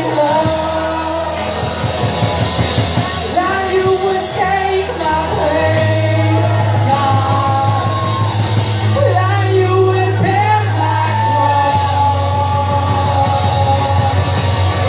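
Live worship band and singers playing a slow worship song, with sung melody over long held bass notes that shift to a new note about six seconds in and again near twelve seconds.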